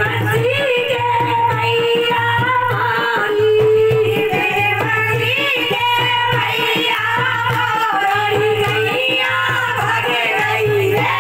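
A woman singing a devotional song into a microphone, with a hand drum keeping a steady beat and strokes or claps along with it.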